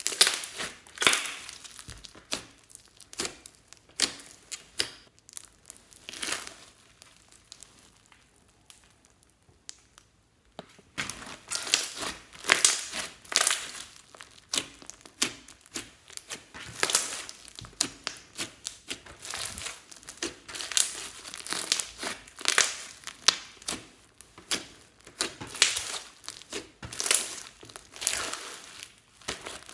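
Hands kneading, pressing and stretching glossy slime mixed with foam beads: sticky crackling in irregular bursts as it is squeezed and pulled, with a quieter few seconds about a third of the way in.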